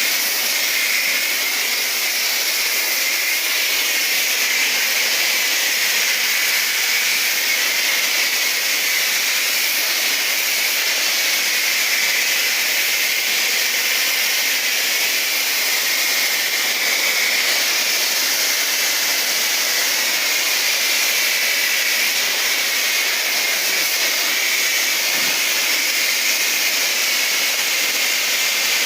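Car wash pressure washer wand spraying a high-pressure jet of water to blast off mud, a loud steady hiss with no let-up.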